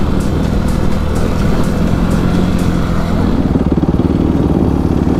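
Dirt bike engine running under the rider while riding the trail; about three seconds in it drops to a low, pulsing idle.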